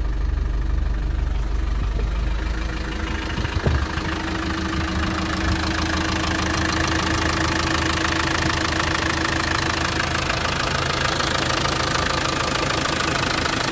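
Land Rover Defender 300Tdi 2.5-litre four-cylinder turbodiesel idling steadily, warm, without needing the cold-start aid. It is heard first from the cab, then close up at the open bonnet, where it sounds brighter, with a brief knock about three and a half seconds in.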